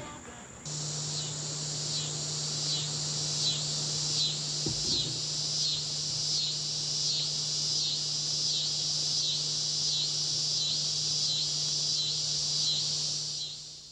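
Evening insect chorus: a high, pulsing trill repeating about three times every two seconds, over a steady low hum. It starts abruptly under a second in and fades away near the end.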